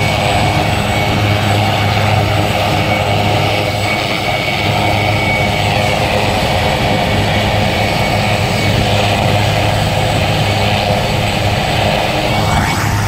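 Two RAF Puma helicopters running on the ground: a steady high turbine whine over a constant low rotor and engine hum.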